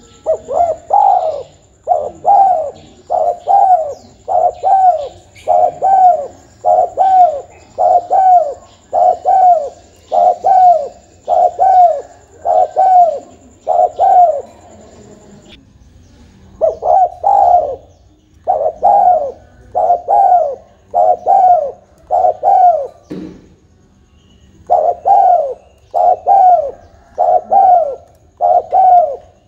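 Spotted dove cooing over and over, a steady run of arching coo notes about every three-quarters of a second, broken by two short pauses, one about halfway and one about three-quarters through.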